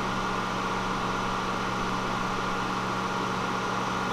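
Steady, even hum of machine-shop equipment running, with a constant low drone under a higher whine.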